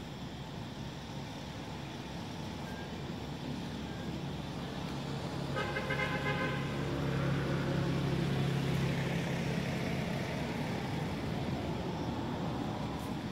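Low engine hum of a passing motor vehicle, growing louder through the middle and easing off near the end, with a short high tone about six seconds in.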